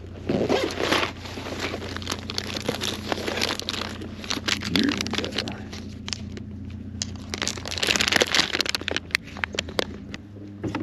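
Plastic soft-bait packages crinkling and rustling as they are pulled from a tackle bag and opened by hand, over a low steady hum.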